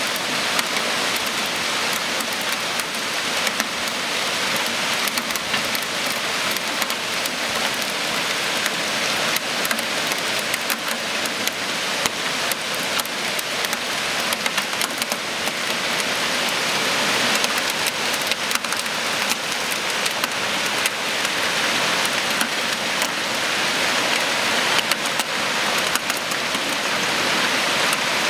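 Hail and heavy rain pelting the street and parked cars: a dense, steady hiss thick with sharp ticks of hailstone impacts. It grows slightly heavier in the second half.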